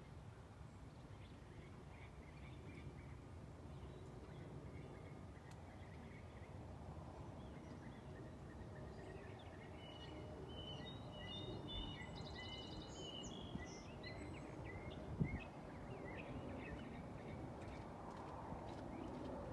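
Outdoor background: a steady low rumble with birds chirping here and there, and a quick bird trill about ten seconds in. A single thump about fifteen seconds in.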